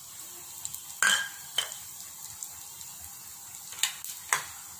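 Oil sizzling in a frying pan as mustard seeds, lentils and dried red chillies are tempered, a steady hiss broken by about four sharp pops of seeds spluttering.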